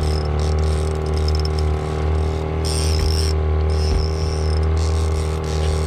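Boat motor running steadily while trolling, with a high-pitched whine that comes and goes several times over it.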